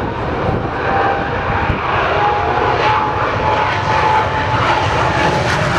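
Jet aircraft engines running loud and steady: a broad rushing noise with a faint high whine that rises slightly in pitch through the middle.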